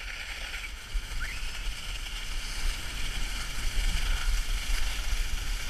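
Steady rushing hiss of a GT Snowracer's skis sliding over snow at speed, with wind buffeting the camera microphone in a low rumble.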